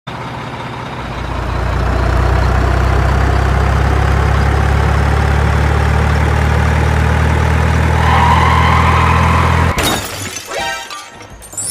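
Heavy diesel truck engine running steadily as a cement mixer truck drives past, growing louder over the first two seconds and cutting off suddenly near the end. A short run of clinks and tinkles follows.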